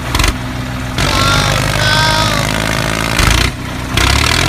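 Diesel tractor engine running at a steady idle, a low even chug, with the sound jumping abruptly about a second in and again near the end.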